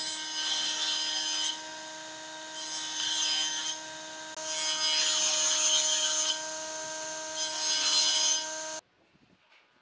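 Table saw of a combination woodworking machine running with a steady hum while it rips thin strips from a wooden board. There are four cuts, each adding a loud hiss of the blade in the wood. The sound stops abruptly about a second before the end.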